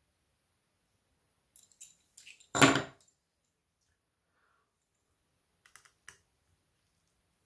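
Small repair tools being handled on a work table: a few light clicks, a louder knock about two and a half seconds in, then a few more clicks near the six-second mark.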